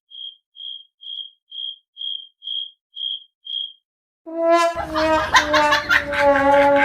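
Eight short, high electronic beeps, about two a second. Then, after a brief gap, a louder pitched sound with a noisy low rumble beneath it starts and runs on.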